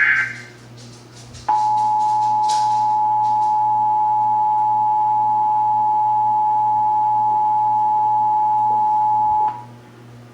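Emergency Alert System two-tone attention signal: two steady tones sounded together, starting about a second and a half in and cutting off abruptly after about eight seconds. It comes just after the end of the buzzy SAME header data bursts, and it is the signal that a test alert is on the air.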